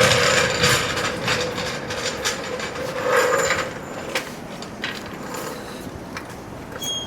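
Rusty sheet-metal body parts being handled, scraping and clattering with scattered knocks, louder for the first few seconds and quieter after about four seconds in.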